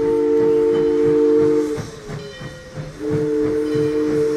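Steam locomotive's chime whistle blowing two long blasts, each a steady chord of several notes. The first ends about two seconds in and the second begins about a second later. A regular low beat from the running train lies underneath.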